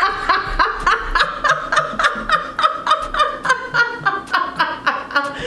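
Two women laughing hard together: a long, unbroken run of loud, high-pitched 'ha-ha' bursts, about four to five a second.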